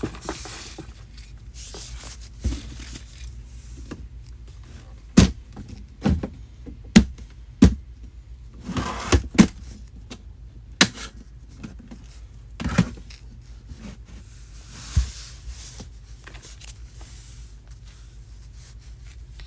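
Handling noise from boxes and containers being moved and packed: about nine sharp knocks and clatters at irregular intervals, with bursts of rustling between them.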